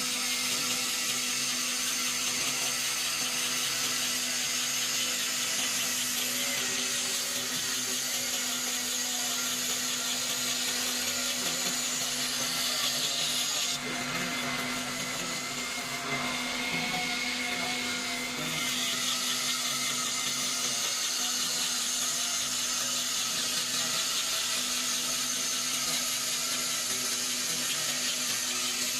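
CNC cutting machine running as it cuts a cat scratch board: a steady high-pitched whine over a constant hum, dipping slightly in level for a few seconds about halfway through.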